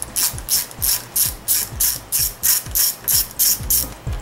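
Hand socket ratchet clicking in quick, even strokes, about four a second, backing out the bolts of a 4R70W transmission's shift selector switch; the clicking stops near the end.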